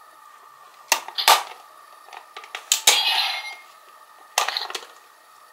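Sharp plastic clicks and clacks of a hard plastic Zyuoh Cube toy being handled and turned, in small groups about a second in, near three seconds in and again about four and a half seconds in.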